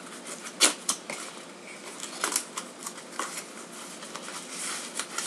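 Packaging being rummaged through by hand while unboxing a laptop: rustling and crinkling with quick sharp clicks and taps, the loudest snaps a little under a second in.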